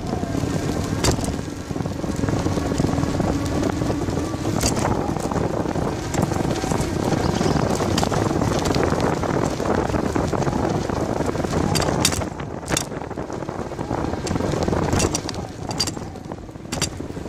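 Bicycle riding over rough, cracked asphalt, with a steady rush of wind on the microphone and scattered sharp knocks and rattles as the bike hits bumps.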